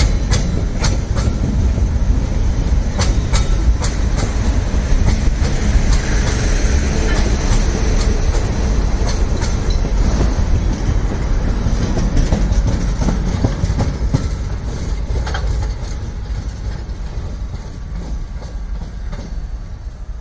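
Open-top freight wagons of an MRS freight train rolling past close by: a heavy steady rumble with sharp, irregular clacks as the wheels cross rail joints. After about 14 seconds it grows quieter as the last wagon passes and the train moves away.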